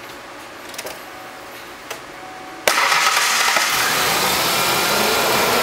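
1996 Mazda pickup engine starting suddenly about two and a half seconds in, after two faint clicks, and then running steadily, its cooling fan turning on a newly fitted fan clutch.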